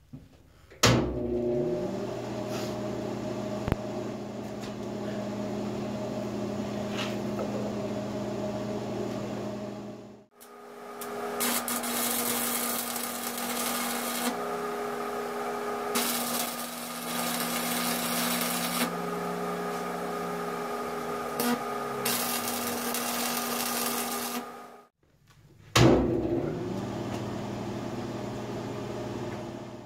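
Electric arc welding on steel rod: the arc crackles and hisses in several runs of a few seconds each over a steady machine hum. Before and after it, a motor spins up with a rising whine and then runs steadily.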